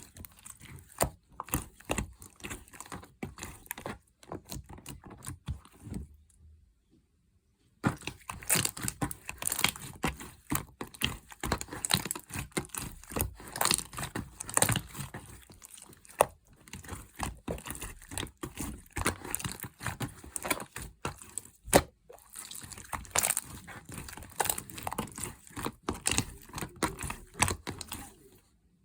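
Clear blue slime being squeezed and pressed by hand, making a dense, irregular run of small wet clicks and crackles, with a pause of about two seconds a quarter of the way in.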